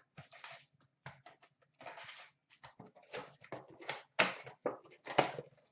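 Hockey trading cards and their pack wrapper being handled: short papery rustles and flicks with gaps between, and a few sharp taps, the two loudest about four and five seconds in.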